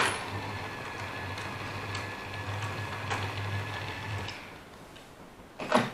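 OO gauge model train running on the layout track, its small electric motor humming with light clicking from the wheels, fading out after about four seconds. A couple of short knocks near the end.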